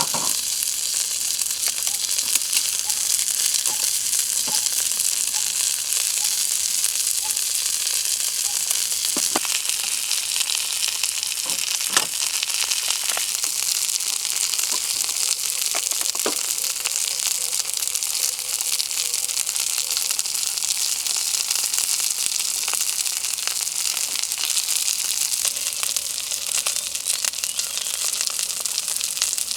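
Food sizzling and frying in a pan, a steady hiss with a few sharp clicks and taps.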